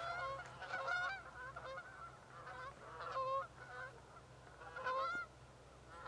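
A flock of geese honking, the calls coming in bunches: one cluster at the start, another about three seconds in, and another around five seconds.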